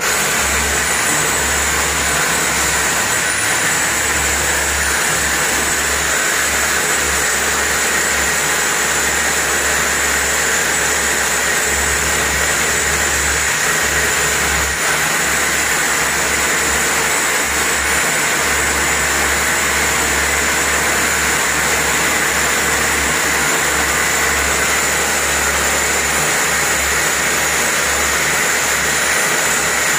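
Electric drill boring through a masonry wall, running continuously at a steady, loud pitch with a constant high whine.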